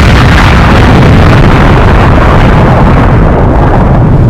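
Loud, distorted explosion-like rumble, a long dense roar that eases off slightly near the end.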